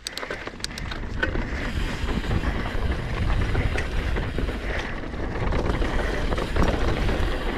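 Mountain bike descending a dirt trail: wind rushing over the camera microphone and tyres rolling over dirt and stones, with the bike rattling. The rush builds over the first second or so as the bike picks up speed.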